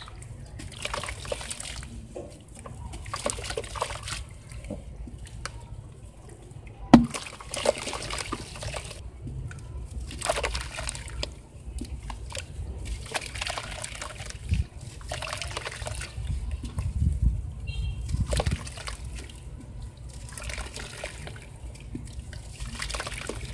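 Soaked lumps of soft sand crumbling apart in hands in a bucket of water: irregular sloshing, splashing and trickling as the pieces break and water runs off. A single sharp knock about seven seconds in.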